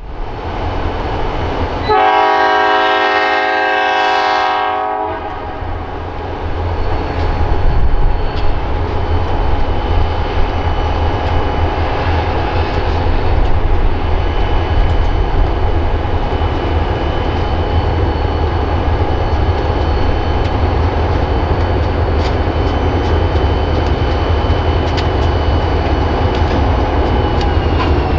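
Ann Arbor Railroad diesel freight locomotives sound one horn blast of about three seconds, then their engines rumble steadily and the train's wheels clatter and click over a steel bridge.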